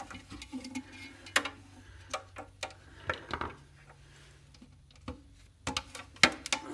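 Scattered clicks and knocks of electronic scrap parts being handled and set down, with a sharper tap about a second and a half in and a cluster of clicks near the end, over a faint steady hum.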